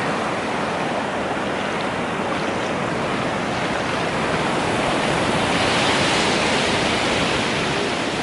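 Ocean surf breaking and washing up the beach: a steady rushing noise that swells a little about six seconds in.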